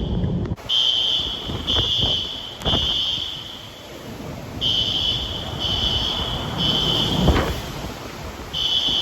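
Fire alarm beeping in the three-beep evacuation pattern: three high beeps of about a second each, a pause, then three more, over the steady rush of hurricane-force wind. A sharp knock about seven seconds in.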